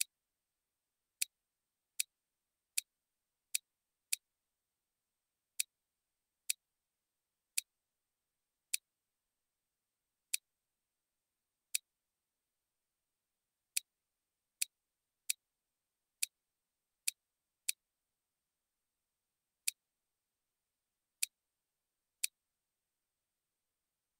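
Computer mouse clicking: about twenty sharp single clicks at uneven intervals, some close together and some several seconds apart, with almost nothing between them.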